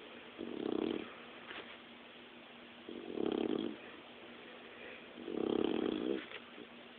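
Dog snoring: three snores, evenly spaced about two and a half seconds apart.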